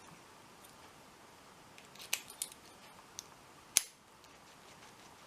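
A few sharp metallic clicks, spaced out over a couple of seconds, from a Master 9140D padlock being worked with its key.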